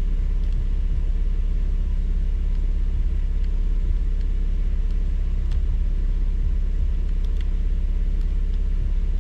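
2017 Camaro LS's 3.6-litre V6 idling steadily after a fresh oil change, a low, even engine note that does not change.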